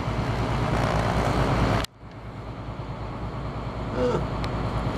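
A motor yacht's engines drone steadily under a hiss of wind and water while the boat is underway. About two seconds in, the whole sound cuts out abruptly and then fades back in.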